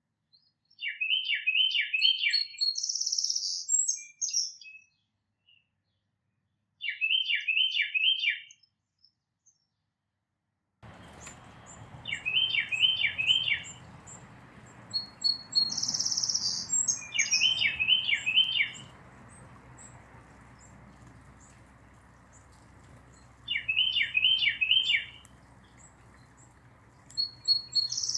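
Small songbird repeating a short phrase of four quick chirping notes, with a higher note beside some of them, about every five seconds. A faint steady background hiss comes in about eleven seconds in.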